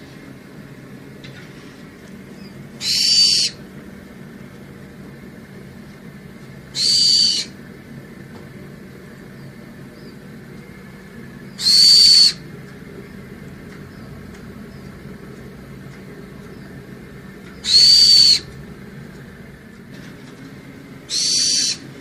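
A high-pitched bird call, repeated five times a few seconds apart, each call about half a second long, over a faint steady background.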